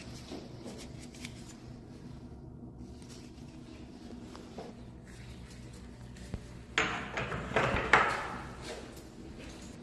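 Work on a door and its hinges: a rough burst of scraping and knocking lasting about a second and a half, starting near seven seconds in and loudest near its end, over a steady low hum.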